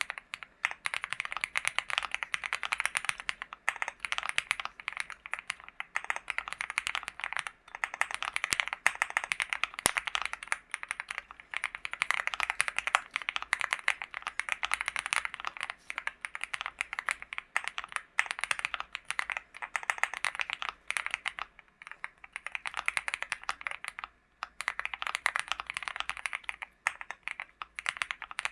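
Fast continuous typing on a LEOBOG Hi75 mechanical keyboard with Gateron G Pro 3.0 Yellow linear switches: a dense stream of keystroke clacks with a few brief pauses.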